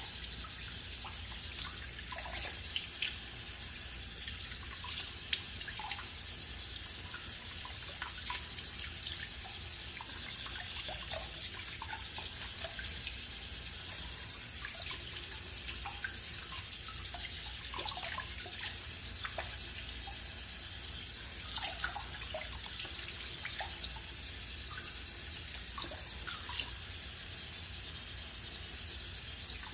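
A bathroom sink tap running steadily while a face is rinsed in warm water under it, washing off a coffee-ground scrub, with small splashes and drips throughout.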